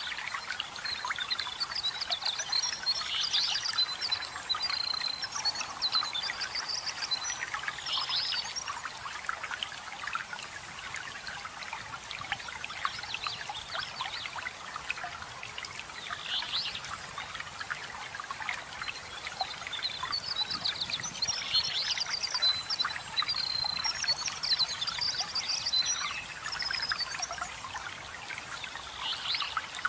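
Small waterfall or stream trickling and splashing steadily, with songbirds singing rapid high chirping phrases in two spells: through the first several seconds, and again from about two-thirds of the way in.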